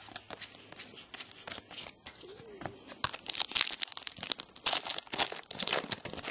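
Trading-card pack wrapper being torn open and crinkled in the hands, with cards rustling against each other: a run of short crackly rustles, densest from about three seconds in.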